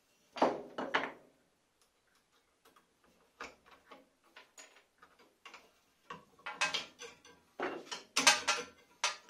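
Scattered clicks and knocks as a scroll saw's blade, clamp and wooden workpiece are handled with the saw switched off, loudest about half a second in and again around eight seconds in.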